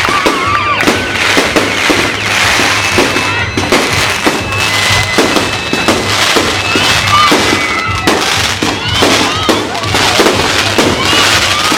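Fireworks display: a dense, continuous barrage of sharp bangs and crackles, many per second, with a few short whistles among them.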